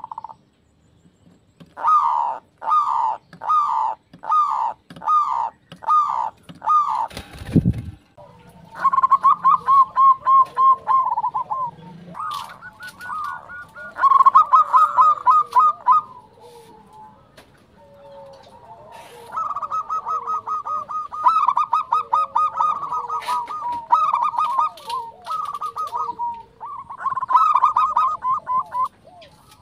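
Zebra dove song: first a series of about seven separate coos, each falling in pitch, then fast trilled cooing phrases that start and stop again and again.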